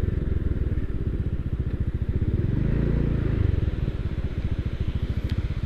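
Motorcycle engine running close by with a rapid, even pulse, growing louder about halfway through and then easing off.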